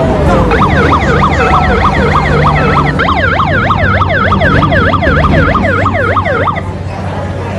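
Fire vehicles' electronic sirens sounding a fast yelp, about three rising-falling sweeps a second, with a second siren joining about three seconds in. Both cut off shortly before the end, leaving the low steady rumble of the vehicle engines.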